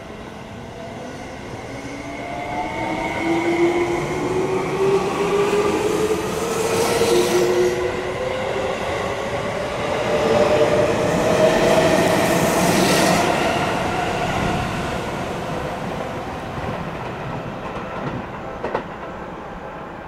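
Seibu 20000 series electric train's Hitachi three-level IGBT-VVVF inverter and traction motors whining as the train accelerates: several tones climb together in pitch for about ten seconds over the running noise of the wheels on the rails.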